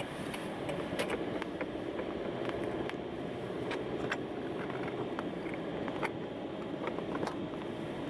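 A car driving on a snow-covered road, heard from inside the cabin: steady tyre and engine noise with scattered sharp clicks and ticks.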